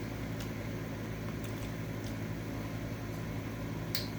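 Steady hum of a room air-conditioning fan running, with a few faint short clicks over it, the clearest just before the end.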